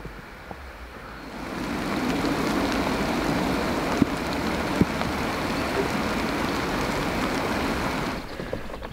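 Steady rain falling on leaves and ground, swelling about a second and a half in, with a few sharp ticks of single drops.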